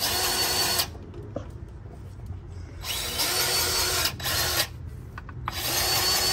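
Cordless battery-powered grease gun motor running in three short bursts as grease is pumped through its hose: at the start, in the middle, and again near the end.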